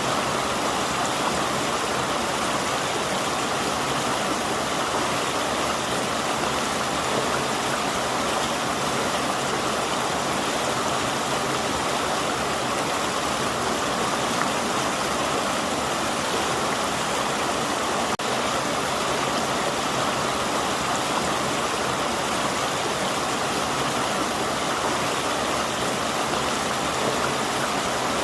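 Forest river flowing over rocks, a steady rushing of water.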